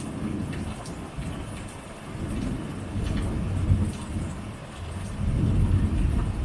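Thunder rumbling over steady rain, swelling about halfway through and again near the end, with scattered drops ticking on a surface.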